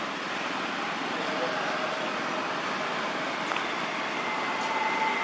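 Steady outdoor background noise with faint, indistinct voices.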